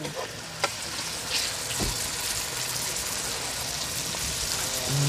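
Saltfish frying in a pot, sizzling steadily, with one sharp click just over half a second in and a soft knock near two seconds.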